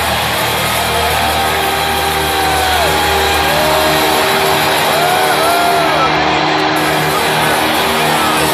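Heavy metal band playing loud live in an arena: distorted electric guitars holding chords, with sliding, bending notes over them and drums underneath.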